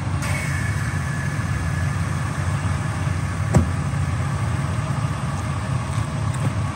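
Pickup truck engine idling steadily, with one sharp click a little past halfway.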